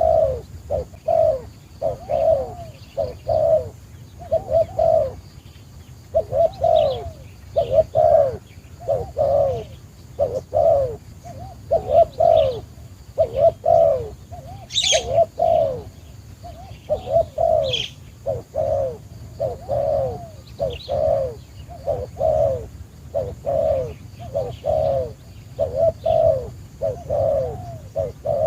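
Dove cooing over and over, a low falling coo about once a second, with a few short high chirps from other small birds mixed in.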